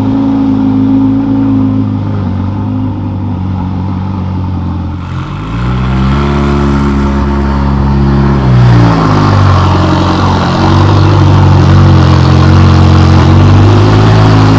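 Ferrari 488 GTB's twin-turbo V8 breathing through a loud Novitec aftermarket exhaust, running at low revs as the car moves at low speed. About five seconds in the revs rise and hold for a few seconds, then drop back, and the engine runs louder for the rest.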